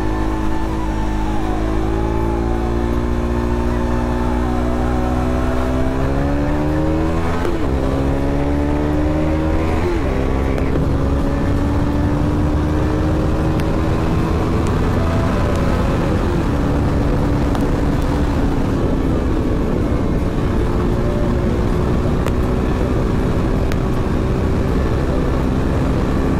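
A single-cylinder KTM RC 390 engine accelerates on the highway, its pitch climbing. It drops back at upshifts about seven and ten seconds in, then runs almost steadily at around 116 km/h. Wind rushes under the engine note throughout.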